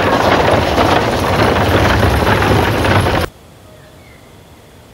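Horse-drawn stagecoach racing at a gallop: pounding hooves and the rattle of the coach, loud and dense. It cuts off abruptly about three seconds in, leaving a quiet outdoor background with a few faint bird calls.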